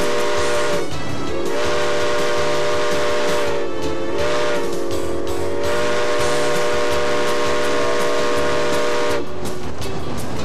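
Steam locomotive chime whistle blowing a chord of several pitches, held in long blasts. The pitch sags and breaks twice as the valve is eased, and the whistle cuts off about nine seconds in.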